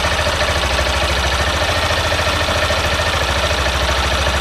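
Honda CG 160 Fan's single-cylinder engine idling steadily, with a faint ticking that the owner says comes from excessive play in the rocker arms and camshaft, a known complaint on these engines.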